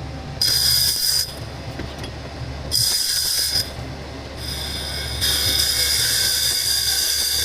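CNC lathe turning gunmetal: a steady low hum of the running machine, with a loud, high-pitched cutting squeal in three bouts. The last bout starts about five seconds in and carries on.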